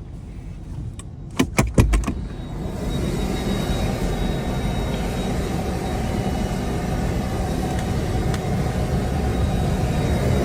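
A few quick knocks about a second and a half in. Then the steady rumble of a car on the move, heard from inside the cabin, with a faint high whine.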